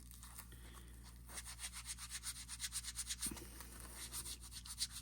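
A wet melamine sponge scrubbing a resin watch part in quick back-and-forth strokes. It is faint, with a soft rhythmic rubbing that starts about a second in.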